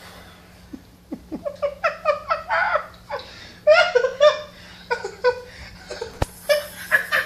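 A person laughing in short repeated bursts, starting about a second in and loudest around the middle.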